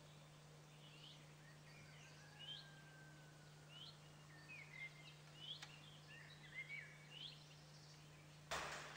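Faint birds chirping, short rising chirps every second or so, over a steady low hum. Near the end there is a sudden brief rush of noise, the loudest moment.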